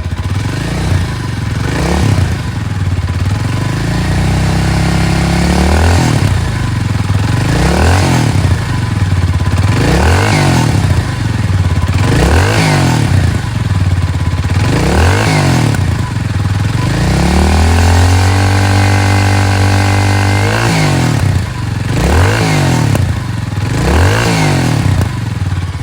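Kawasaki Meguro S1's stock 233 cc single-cylinder engine running, blipped repeatedly with short throttle revs about every two seconds that rise and fall back to idle. About two-thirds of the way in, one rev is held high for a few seconds before dropping back.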